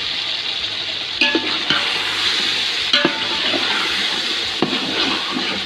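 Boiled meat sizzling as it fries in oil with tomato-onion masala in a metal pot. A metal spoon stirs it, knocking and scraping against the pot a few times.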